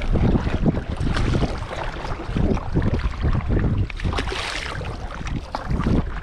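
Kayak paddle strokes splashing and dripping in the sea, under wind buffeting the microphone. A louder splash comes about four seconds in.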